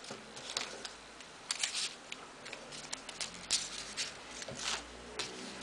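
Folded paper origami modules being handled and pushed together by hand: a string of short, scattered paper rustles and light clicks.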